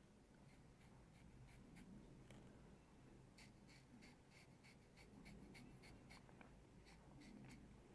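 Faint, short scratching strokes of a dermaplaning blade scraping fine hair from the skin of the forehead, repeated many times in quick succession.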